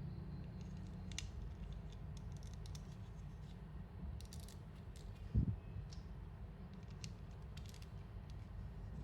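Small plastic Lego Technic parts being handled and clicked together: scattered faint clicks and ticks, with one dull thump about five seconds in, over a steady low hum.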